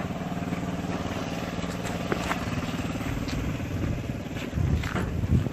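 A wheel loader's diesel engine idling steadily, with a few light clicks over it.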